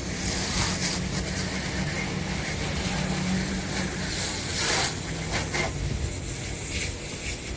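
Water hose spraying, a hiss that swells in spells, loudest about four to five seconds in, over a low steady hum.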